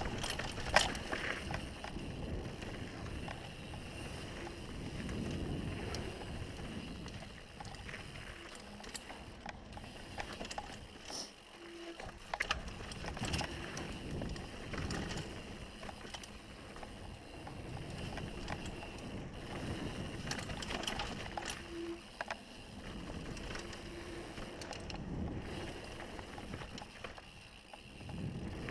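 Mountain bike running fast down a dirt trail: tyre noise over the dirt with the bike rattling on the bumps and scattered knocks, the sharpest about a second in, under wind rushing over the microphone.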